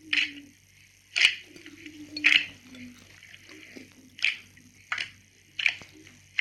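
A large batch of slime being pressed and poked by hand, giving short, sharp pops or clicks about once a second.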